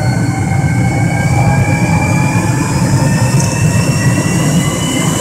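Jet dragster's turbine engine running on the spot with its afterburner lit: a loud, steady rumble under a high turbine whine that rises slowly in pitch.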